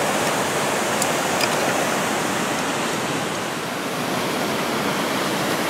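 Steady rushing of a partly frozen waterfall, the water pouring through the ice. A couple of faint ticks about a second in.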